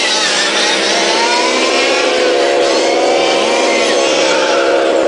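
Several radio-controlled model race cars running together, their small engines buzzing loud and steady, each one's pitch rising and falling as it accelerates and slows.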